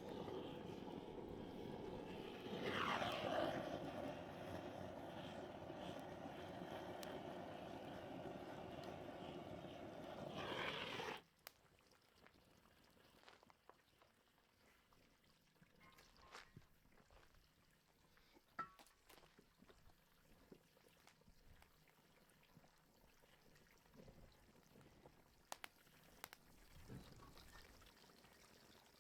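Water pouring or running steadily, swelling briefly twice, then stopping abruptly about eleven seconds in. After that there is quiet with a few small clicks and knocks.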